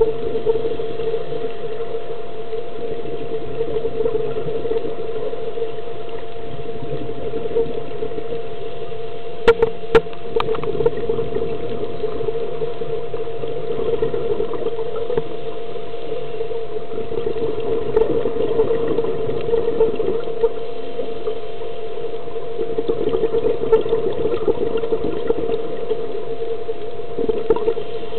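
Underwater sound: a steady droning hum with uneven water and bubble noise over it, typical of boat engines carried through the water. Two sharp clicks come about ten seconds in.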